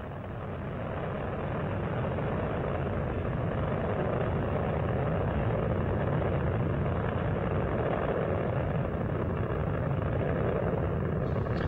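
Space Shuttle Discovery's solid rocket boosters and main engines firing during ascent: a steady, dense roar of rocket noise that builds slightly over the first couple of seconds.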